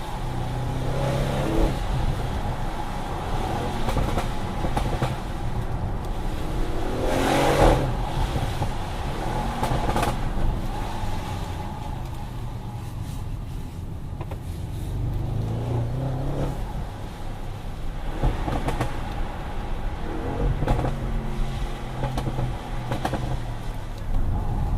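Audi RS6 Performance's twin-turbo V8 on the move, its engine note rising and falling several times as the car accelerates and eases off. A single loud burst stands out about seven and a half seconds in.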